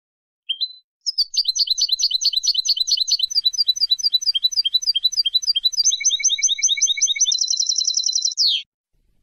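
European goldfinch song used as a tutor recording for young birds: one short note, then a long, rapid trill of repeated high chirping notes. Near the end it changes to a faster buzzy trill and closes on a falling note.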